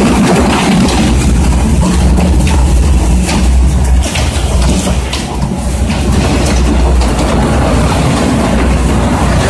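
Industrial plastic shredder chewing corrugated plastic pipe. Its motor and rotor make a heavy, steady drone, overlaid with irregular cracking and snapping as the pipe is torn apart, easing slightly midway.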